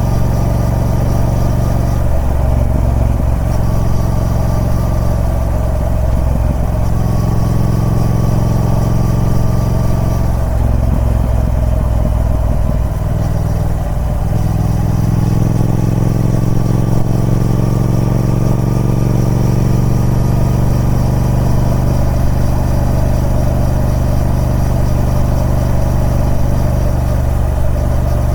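Triumph Speed Twin 1200's 1200cc parallel-twin engine running through its stock exhaust, a steady note that shifts slightly in pitch a few times.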